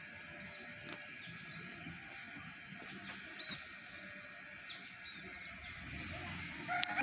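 Quiet outdoor ambience: a faint steady hiss with a few short, scattered bird chirps. Right at the end a loud voice starts up.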